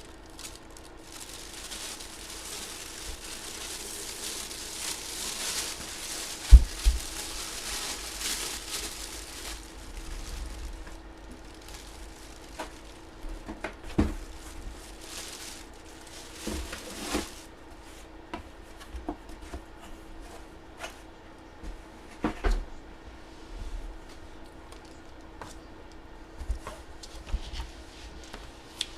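Rustling and crinkling of packaging as items are handled on a table, with a sharp knock about six and a half seconds in and scattered lighter clicks and knocks afterwards, over a faint steady hum.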